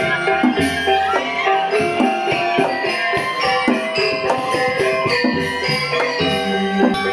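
Balinese gamelan music: metallophones ringing in quick, dense strokes, with a jingling, cymbal-like shimmer on top and a low, deep tone that swells in a few times.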